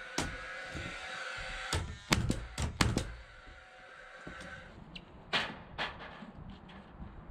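Sharp knocks and thuds from building work: a quick run of blows about two to three seconds in, then two more near the end.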